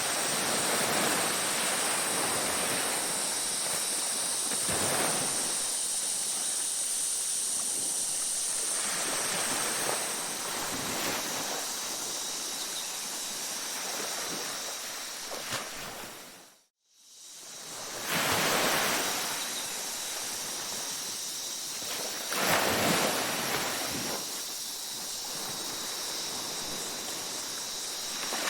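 Ocean surf washing onto a beach, rising and falling in slow swells of wave noise, with a few thin, steady high-pitched tones above it. The sound fades out completely a little past halfway and swells back in about a second later.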